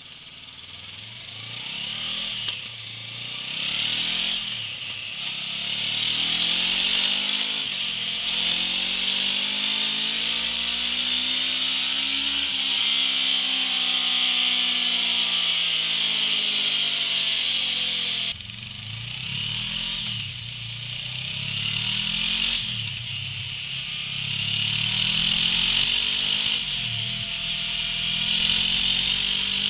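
2016 Honda CB500F's parallel-twin engine revving on a dyno with its rear wheel driving the roller, over a strong high hiss. Through the stock exhaust it revs up and down, with one long rise and fall in pitch in the middle. About 18 seconds in the sound changes abruptly to the same engine through a MIVV GP slip-on silencer, revving in quicker rises and falls.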